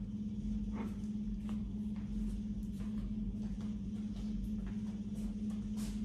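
Faint footsteps, a soft tap every half second to a second, as someone walks across a kitchen floor, over a steady low hum.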